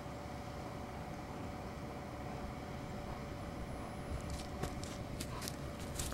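Outdoor background noise: a steady low rumble with a faint steady hum, and from about four seconds in a run of light clicks and rustles.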